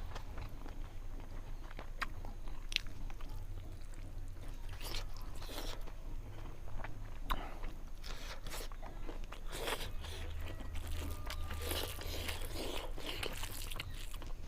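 A person chewing and eating fish curry close to the microphone: wet mouth smacks and scattered short crunches and clicks, coming thicker in the second half.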